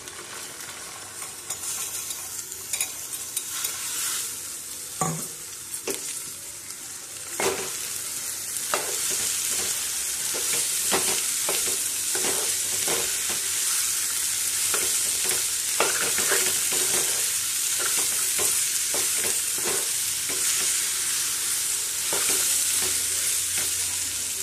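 Chopped cluster beans frying in oil and onion paste in a metal pan, sizzling, with a metal spatula scraping and knocking against the pan as they are stirred. The sizzle grows louder about seven seconds in.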